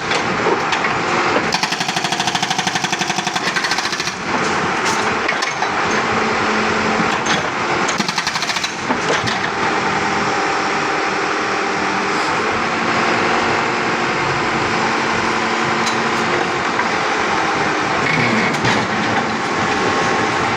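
Backhoe-mounted hydraulic breaker hammering a 5-inch concrete slab in rapid, continuous blows, with a couple of brief breaks, over the backhoe's engine running steadily.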